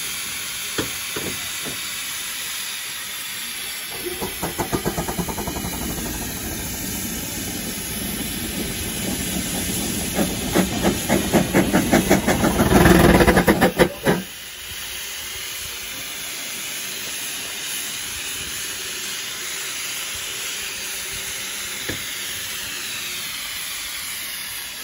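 Steam rotary snow blower working in hard snow: a steady steam hiss, joined about four seconds in by rhythmic steam exhaust beats that quicken and grow louder, then stop abruptly about halfway through while the hiss carries on.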